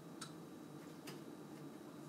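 Two faint plastic ticks about a second apart as a fan cable's connector is worked onto the header of a PC case's fan control board.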